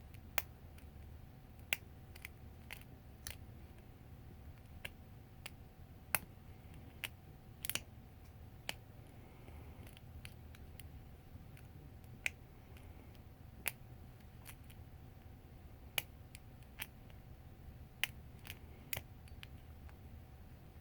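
Lock picking: a pick and tension wrench working in a pin tumbler lock, giving sharp, short metallic clicks at irregular intervals, about twenty in all.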